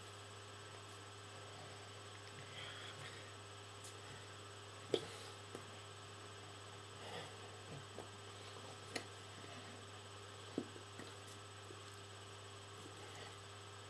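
Steady low electrical hum, with a few sharp taps and soft rustles of hands meeting and brushing against each other and a T-shirt while signing in American Sign Language; the sharpest taps come about five, nine and ten and a half seconds in.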